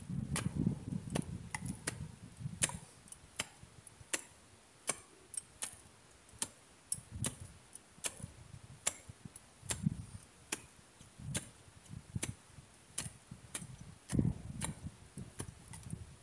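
A hand tool working the ground at the foot of a log frame: irregular sharp clicks, about one or two a second, mixed with dull low thumps and scraping of soil and leaves.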